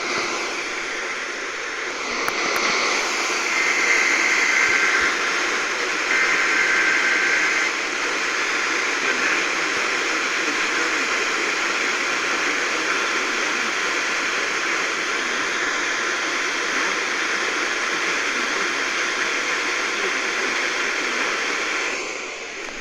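Weak NOAA Weather Radio signal received on a software-defined radio: steady loud static hiss. Two short bursts of electronic data tones, the SAME alert header, come through it about three and a half and six seconds in.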